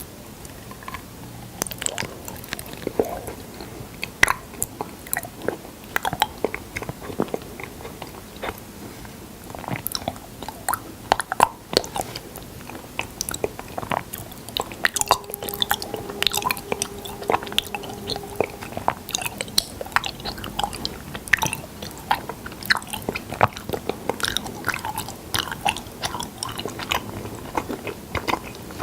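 Close-miked chewing and biting of honey, a dense run of irregular sticky, wet clicks and crackles.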